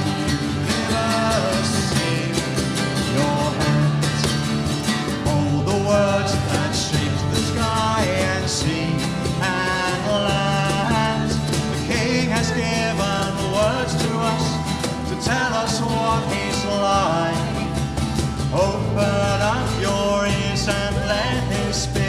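A worship song played at full volume: voices singing over instrumental accompaniment.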